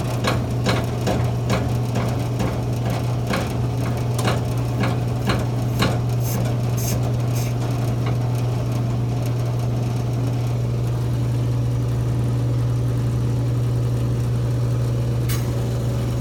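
Steady, loud hum of a vacuum pump running on a brake booster test bench, holding vacuum on an ATE T50-12 brake booster during a pressure test. Sharp clicks come about twice a second for the first six seconds or so, with one more near the end.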